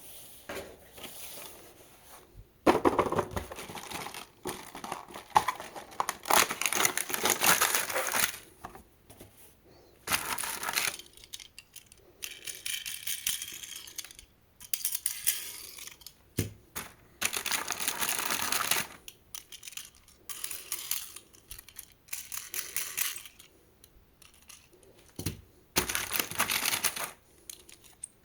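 Toy packaging being handled and opened: plastic and cardboard crinkling and tearing in bursts of a second or two with short pauses between, mixed with small clicks and clinks.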